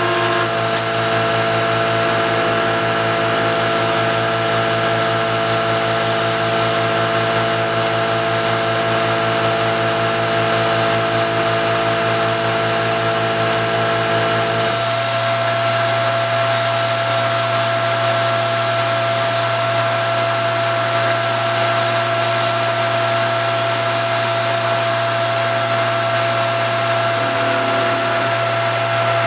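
CNC benchtop milling machine running an end mill through a small metal part: a steady machine whine of several held tones over a constant hiss. About halfway through, the lower tones drop away and a different low hum takes over, while the higher tone carries on.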